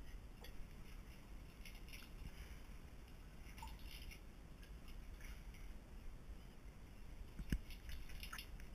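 Faint rubbing of a cloth over porcelain tap handles and a metal bathtub spout, in short scrubbing strokes, with one sharp knock near the end.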